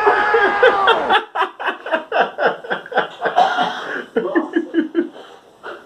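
A man laughing hard in quick, rhythmic bursts, about four a second, after a drawn-out voiced note that breaks off about a second in; the laughter dies away near the end.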